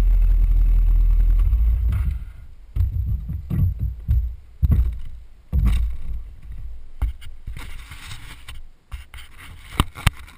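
Steady low rumble of a Suzuki Burgman 650 scooter ride picked up by its action camera, which drops away about two seconds in as the scooter comes to a stop. It is followed by uneven low thumps and a few sharp clicks.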